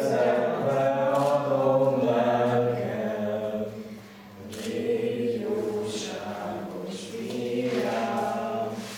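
A small group of young mixed voices singing together a cappella in slow, sustained phrases, with a breath pause about four seconds in and a phrase ending near the end.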